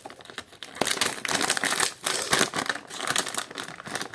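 Crinkling and rustling of packaging being handled, in irregular bursts that are loudest through the middle.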